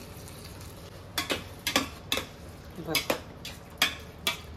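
A metal cooking utensil stirring pasta in a stainless steel pot, clinking and scraping against the pot's sides. A run of sharp clinks, some with a short ring, starts about a second in.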